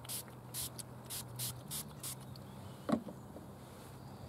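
Hand spray bottle squirting lubricant onto a plastic headlight lens in a quick run of about seven short hissing squirts over the first two seconds, wetting the lens for polishing. A single short knock follows about three seconds in.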